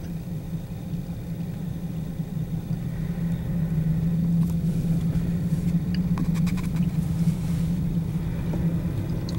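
Car engine and road noise heard from inside the cabin: a steady low hum with rumble underneath, growing a little louder about three seconds in.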